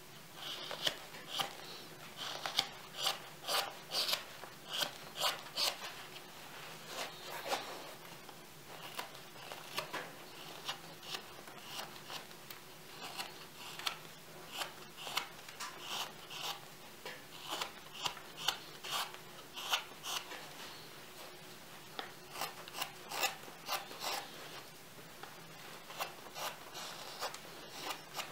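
Yakut knife blade shaving green birch: a steady run of short slicing cuts, about one or two a second, with a few brief pauses, as chips are pared off the outside of a carved cup.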